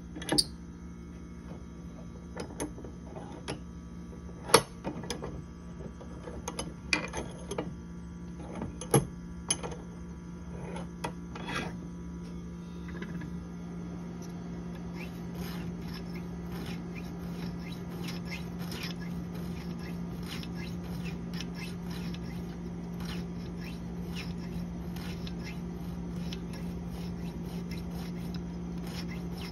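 SEVR broadhead blades being worked on a field sharpener held in a bench vise: a few sharp metal clicks and knocks in the first dozen seconds, then a long run of light scraping strokes, one after another, over a steady low hum.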